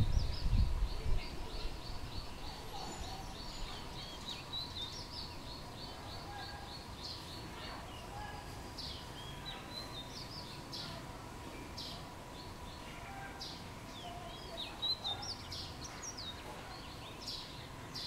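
Bulbuls calling: a fast run of short high notes, about four a second, for the first five seconds, then scattered short chirps that slide downward in pitch.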